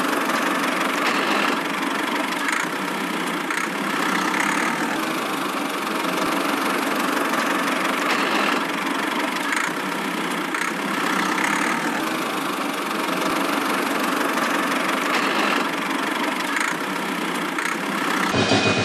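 Steady engine-like running sound, with no deep bass, as a homemade toy mini tractor drives its trolley across sand. Just before the end it changes to a louder, deeper engine sound.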